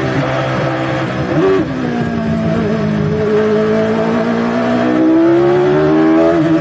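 Onboard sound of a 1990 Footwork Arrows A11 Formula 1 car's Cosworth DFR V8: a short blip and a drop in revs about one and a half seconds in, lower revs held through a corner, then the engine pitch climbing steadily under acceleration from about five seconds in.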